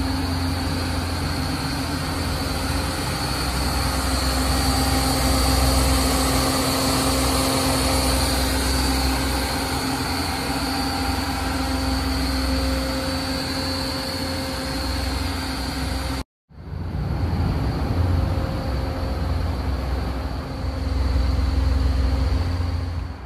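Supercharged BMW E46 engine idling steadily, a low rumble with a constant high whine over it. The sound breaks off for a moment about two-thirds of the way through.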